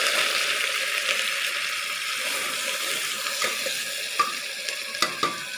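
Freshly added chopped onions sizzling in hot oil with cumin in an aluminium pressure cooker, a steady hiss that slowly eases. In the last couple of seconds a metal spoon stirring them clicks against the pot a few times.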